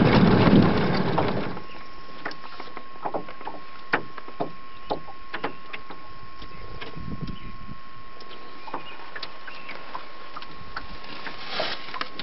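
Wind rumbling on the microphone in a small open boat, cutting off after about a second and a half. Then a quiet stretch with scattered light knocks and clicks and a faint steady high tone.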